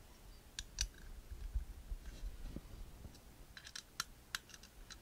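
Faint, scattered small metallic clicks and taps, with a cluster of them about three and a half to four and a half seconds in: an Allen wrench working the screws that clamp a rifle handguard to its upper receiver.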